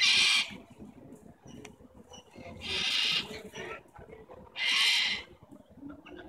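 Sulphur-crested cockatoos screeching: three loud, harsh screeches, one at the start, one about two and a half seconds in and one near five seconds.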